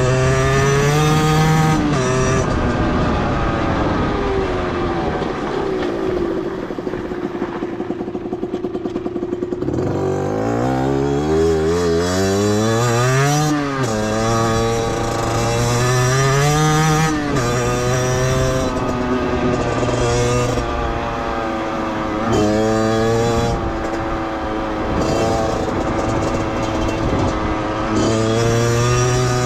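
Beta 50cc two-stroke motorcycle engine revving up and down repeatedly as it is ridden through the gears. About a third of the way in it drops to a low, pulsing idle for a few seconds, then climbs in a steep rev before running on at changing speeds.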